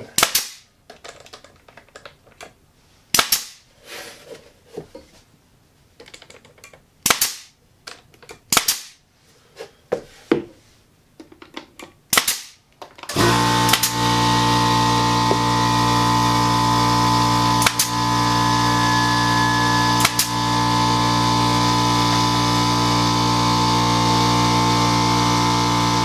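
Pneumatic brad nailer firing into cedar fence-picket boards: several sharp shots a few seconds apart. About halfway through, a steady machine hum starts and runs unchanged to near the end, most likely the shop air compressor kicking on to refill its tank after the nailing.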